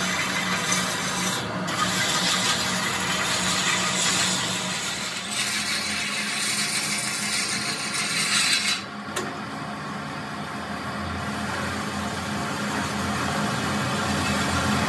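Steel truck rim spinning on a belt-driven lathe while a hand-held wire brush and abrasive are pressed against it, giving a steady rasping hiss over the hum of the lathe's motor. About nine seconds in the rasping breaks off with a sharp click, then builds back up.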